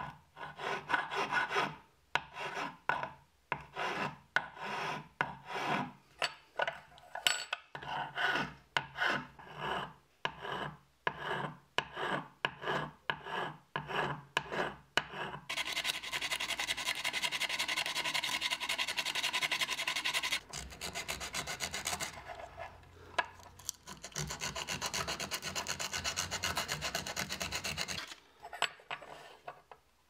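Metal file rasping across an aluminium coffee-maker part in separate strokes, about one and a half a second. About halfway through the strokes give way to fast, continuous abrading in two spells of about five seconds each, with a short pause between them.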